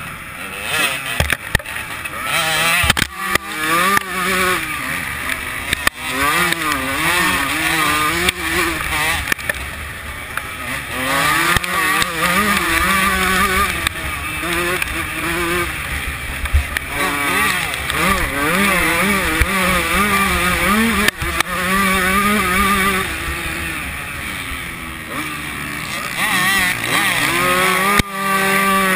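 125cc two-stroke motocross bike's engine revving hard, its pitch rising and falling again and again as the rider works the throttle and gears through the track, with a couple of brief throttle cuts.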